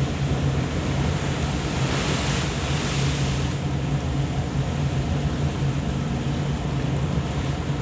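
A ship's engine running with a steady low hum, under steady wind and rushing sea water.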